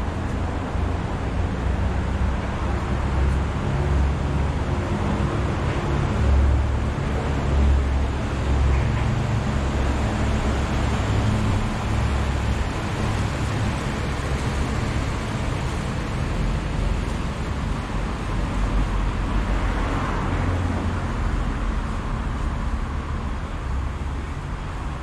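Steady city road traffic noise: a continuous low rumble of passing vehicles.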